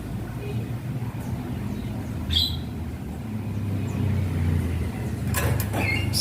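A caged Javan myna gives a short high call about two seconds in and another brief call near the end, with a few sharp clicks. Under it runs a low, steady rumble that swells a little past the middle, like passing traffic.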